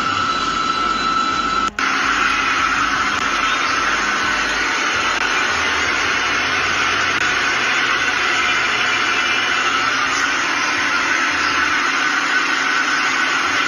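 Steady rushing cabin noise of a private jet in flight, with a faint steady whine. It cuts out for an instant about two seconds in.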